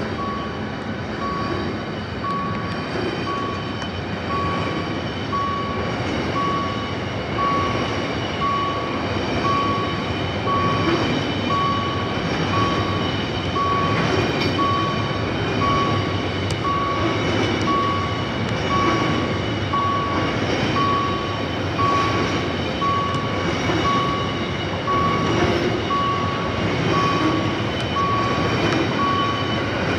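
Level-crossing warning signal beeping in a steady repeating pattern over the rolling rumble and rattle of a freight train of double-stacked container wellcars passing through the crossing.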